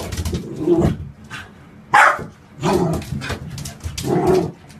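Puppy barking in a bathtub: several short woofs about a second apart, the loudest and highest one about two seconds in.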